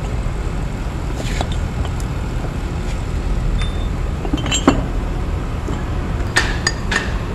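Steel parts of a Kenter shackle and anchor chain clinking and knocking together as they are handled. There are a few sharp metallic clinks, one about halfway and several close together near the end, over a steady low rumble.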